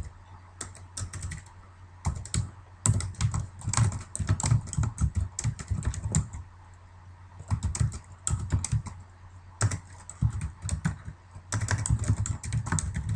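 Computer keyboard typing in quick bursts of keystrokes with brief pauses between them, over a steady low hum.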